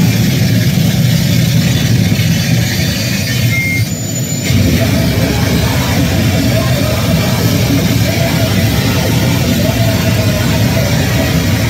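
Loud, dense wall of distorted noise music played through a club PA, with heavy low end. The bass drops out briefly about four seconds in, then the noise comes back just as thick.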